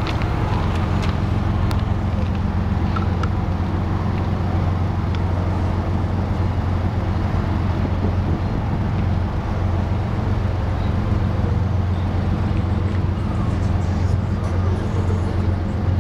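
Diesel locomotive engines running with a steady low drone that holds at an even level.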